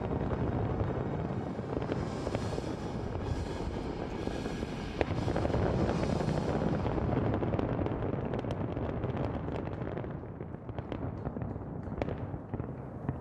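Large aerial fireworks display: a dense barrage of bursts and crackling runs together into a continuous rumble, thinning near the end to scattered sharp crackles and pops.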